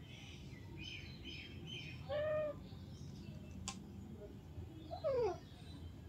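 Alexandrine parakeets calling: a quick run of soft, high chirps about a second in, then two loud short calls about three seconds apart, the second sliding down in pitch.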